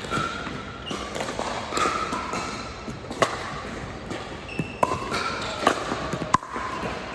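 Pickleball paddles striking the hard plastic ball in a rally: a series of sharp pops, the clearest four coming about a second apart in the second half.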